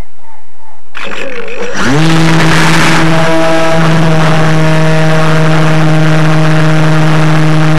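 Motor of a camera-carrying model aircraft powering up. About a second in a rush of noise starts. Just after, a hum rises quickly to a steady pitch and holds there.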